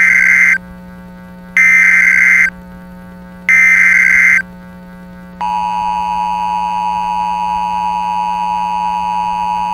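Emergency Alert System SAME header: three short, loud digital data bursts about two seconds apart. About five seconds in, the steady two-tone EAS attention signal begins and holds. A low steady hum runs beneath throughout.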